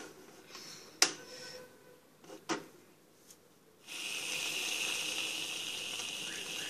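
An aerosol can spraying foam in one steady hiss for about three seconds, starting about four seconds in. Before it come two sharp clicks, about a second in and again a second and a half later.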